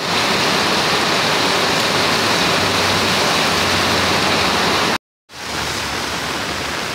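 Heavy rain pouring down on a street, a loud steady hiss. About five seconds in it cuts off abruptly, and a slightly quieter steady rush of rain and flowing floodwater follows.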